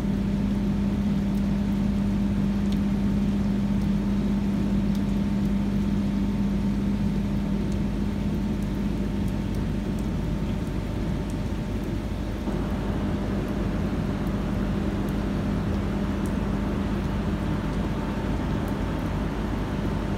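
Steady machine hum from a hydroelectric powerhouse's turbine-generator, a strong low tone with a fainter higher one, over an even hiss of rain. The hiss grows a little brighter about halfway through.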